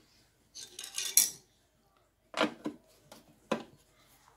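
A metal hand tool working on a lawn mower deck: a brief rattling scrape about a second in, then four sharp metallic clicks as the tool knocks against the deck while bolts are undone.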